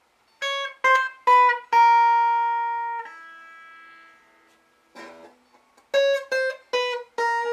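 Epiphone Dot semi-hollow electric guitar played clean on its bridge pickup, volume full and the tone knob at about halfway. A four-note picked phrase ends on a ringing note, a short strum follows about five seconds in, then the phrase repeats. At this setting the tone is kind of usable with the stock tone capacitor.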